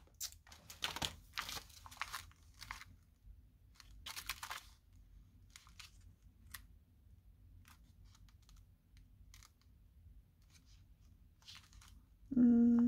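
Crinkling and clicking of clear plastic stamp sets and their packaging being handled, busiest in the first few seconds and then sparse light ticks. Near the end comes a short hummed "hmm" from a voice.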